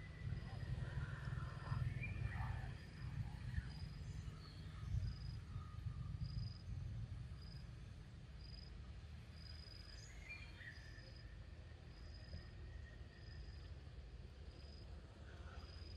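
Outdoor forest ambience: an insect repeats a short high chirp at an even pace, roughly once a second. A few bird calls come in the first few seconds and again about ten seconds in, over a steady low rumble.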